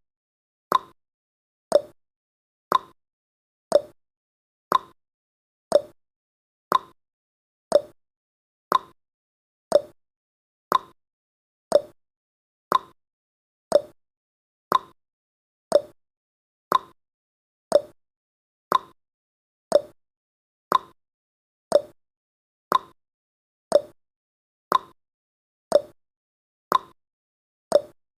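Countdown timer's clock-tick sound effect, one short tick every second, evenly spaced.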